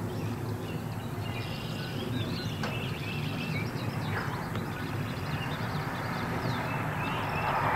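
Open-air ambience: a steady low rumble with many small birds chirping over it, and a broader hiss swelling near the end.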